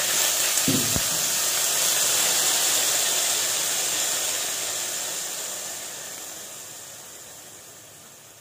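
Hot oil with cumin seeds and tomato purée sizzling and hissing loudly as a splash of water hits it, the hiss dying down steadily over the last few seconds as the water settles into the pan.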